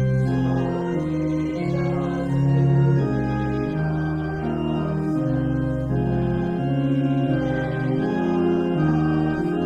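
Church organ playing a slow hymn tune in sustained chords, the notes moving step by step about once every half second to a second.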